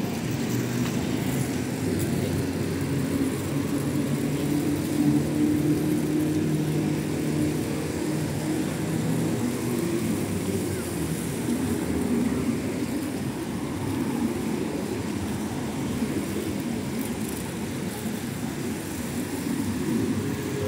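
Steady road traffic rumble. A vehicle engine's steady hum stands out for the first ten seconds or so, then fades into the general noise.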